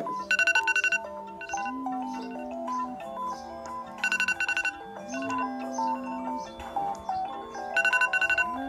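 A mobile phone ringtone: an electronic melody with a bass line. Three times, about four seconds apart, it breaks into a short, fast trill of high ringing pulses.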